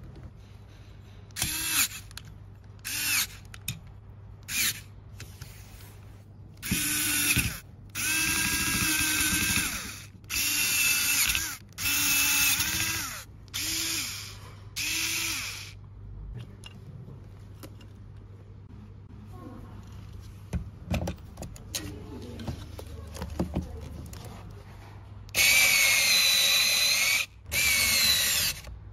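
Small cordless electric screwdriver spinning in repeated short runs, each lasting from half a second to two seconds, as it drives small machine screws into a metal tray and then tightens the expansion-tube screws. A quieter stretch in the middle holds a few light clicks of handling. Two long runs near the end are the loudest.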